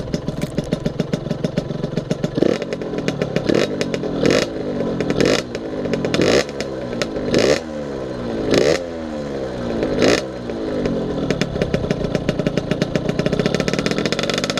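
Derbi Senda 50's two-stroke engine idling, then blipped about eight times in quick succession, each rev rising sharply and falling away, before settling back to idle near the end.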